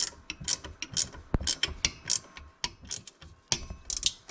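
Ratchet tool clicking in short, irregular strokes as screws are driven back in, with a single heavier knock about a second and a half in.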